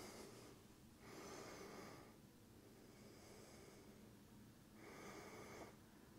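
Near silence with a few soft breaths close to the microphone, about four slow breaths in and out.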